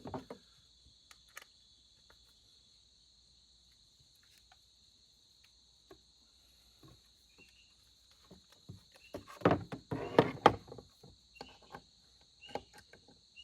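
Small clicks and clatter of parts and hand tools being handled on a chainsaw's chain brake cover, with a busier, louder stretch of rattling about two-thirds of the way through. Crickets chirp steadily in the background.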